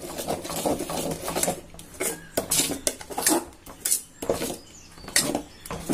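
A spoon stirring batter in a stainless steel bowl, scraping and knocking against the metal in repeated irregular strokes.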